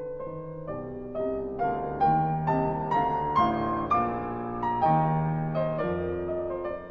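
Background piano music, a new note struck about every half second.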